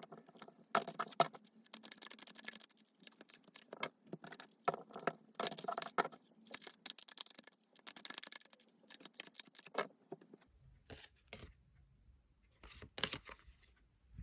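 Tarot cards being shuffled and handled: a run of quick papery riffles and scrapes that thins out about ten seconds in, with a short burst more near the end.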